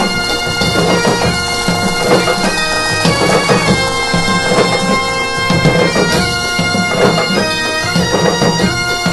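Breton bagad (pipe band) music: bagpipes holding a steady drone and playing a melody, with drums beneath.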